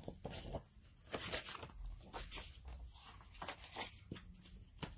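Paper rustling and soft handling noises as a picture book is picked up and its pages turned: a string of short papery rustles and light taps, the loudest about a second in.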